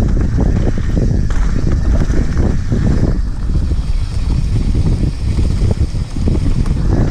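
Wind buffeting a helmet-mounted action camera's microphone over the rumble and irregular rattling of a mountain bike ridden fast downhill over rough dirt singletrack.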